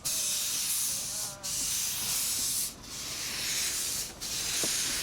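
Kerr Stuart Wren-class narrow-gauge steam locomotive working under steam: long hissing exhaust beats, each about a second and a half long, with brief breaks between them.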